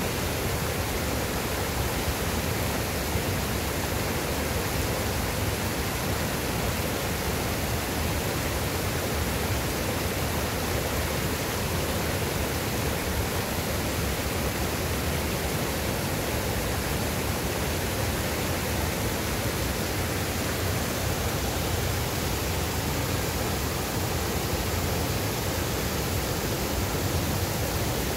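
Steady rush of a small mountain river's flowing water, even and unbroken.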